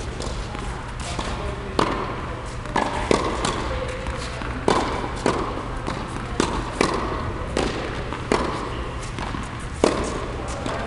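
Tennis balls struck by a racket and bouncing on a hard indoor court in a rally: sharp pops roughly every second, echoing in a large hall, over a steady low hum.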